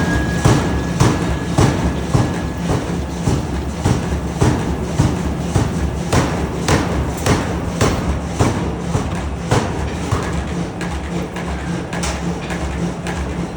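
Air-powered forging hammer striking repeatedly, about two blows a second, over a steady low machine hum.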